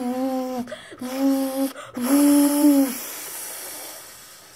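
A child's voice making three steady, held vocal noises, each under a second and about a second apart, in mimicry of a brain working hard. A hiss comes in with the third and fades away over the next two seconds.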